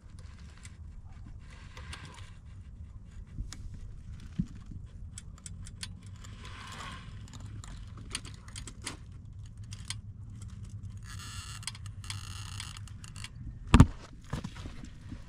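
RC rock crawler working over rock: a steady low drivetrain hum under scattered clicks and metallic clinks from its tyres, links and chassis against the stone, with a buzzing stretch about two-thirds of the way through. Near the end, one loud knock as the rig tips steeply and its chassis strikes the rock.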